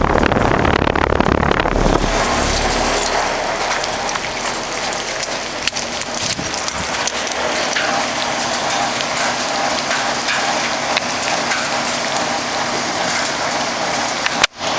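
Heavy rain falling, with many small drop hits, and a Broan heat pump's outdoor unit running steadily underneath as a faint hum. A low rumble sounds in the first two seconds.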